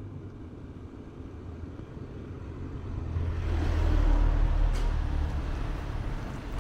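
A motor vehicle driving past on the street: engine rumble and tyre noise build up about halfway through, peak, then fade away.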